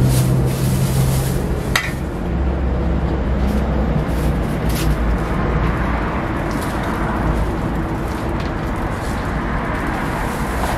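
Steady low hum under a constant noisy background, with a few short clicks and rustles as a plastic spoon, a lidded paper cup and a thin plastic bag are handled for takeaway.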